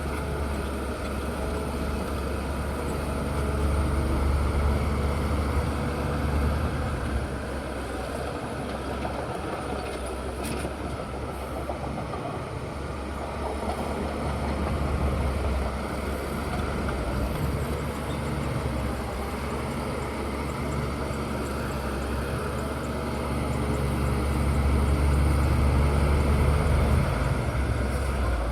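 Bulldozer's diesel engine running steadily, swelling louder a few seconds in and again near the end as the load changes.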